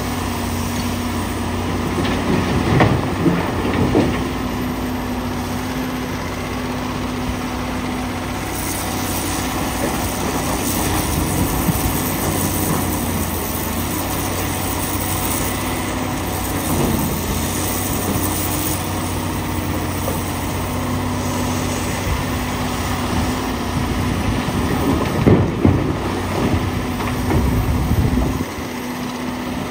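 Komatsu PC450LC hydraulic excavator's diesel engine running steadily under load. Loud clatters of blasted rock hit the steel bed of a dump truck about three seconds in and again near the end, as bucket loads are dumped.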